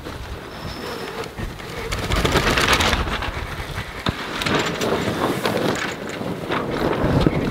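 Wind rushing on the microphone at the bow of a sailing yacht under sail, with the headsail's cloth flapping and knocking now and then as it luffs. The rush swells louder about two seconds in.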